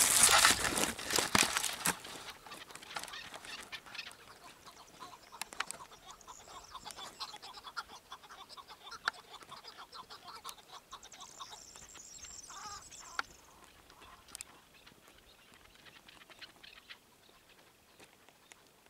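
Rustling noise in the first two seconds, then a chukar partridge calling in a long run of quick clucking notes that fade out after about thirteen seconds.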